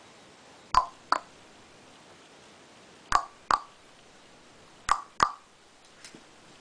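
Three pairs of short, sharp pops or knocks, the two in each pair about a third of a second apart, with a fainter tap near the end.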